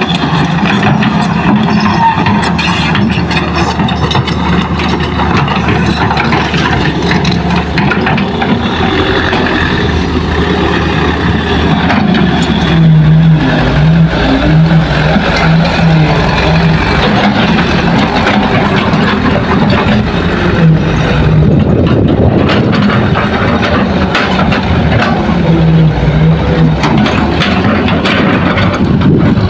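Diesel engines of a Hitachi hydraulic excavator and dump trucks running, a loud continuous engine drone that swells now and then.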